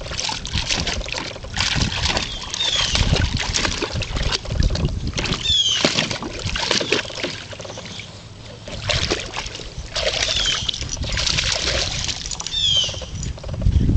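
Water splashing and sloshing in a plastic kiddie pool in irregular bursts as a boxer dog stomps and paws after a ball in it. A bird gives a short falling chirp a few times.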